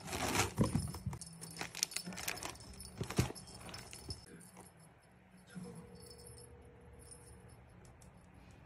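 Cat grabbing and wrestling a feather wand toy inside a cardboard box lined with newspaper: paper rustling, cardboard scuffs and light clicks and jingling, busiest in the first four seconds, then dying down.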